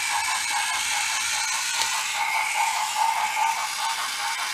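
Battery-powered toy locomotive running on wooden train track: its small electric motor and gearbox whirring steadily, with a fast even pulse.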